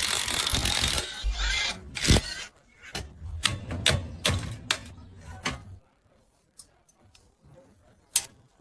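E-rickshaw drive mechanism making an abnormal mechanical noise: a rush of grinding noise for about a second, then a run of irregular clicks and knocks over a low hum that stops about six seconds in. A few faint clicks and one sharp click follow near the end.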